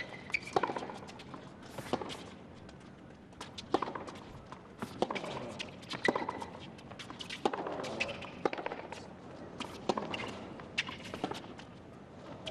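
Tennis balls struck by racquets and bouncing on a hard court during a long baseline rally: sharp pops roughly every second.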